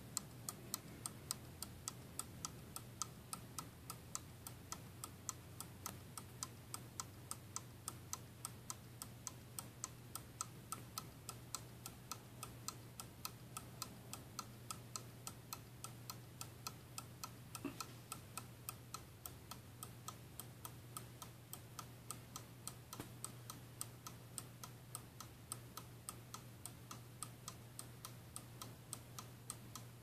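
Vintage Lux (Keebler) Love Birds pendulette clock ticking, its wind-up movement running with quick, even ticks. The movement has been freshly cleaned, oiled and adjusted.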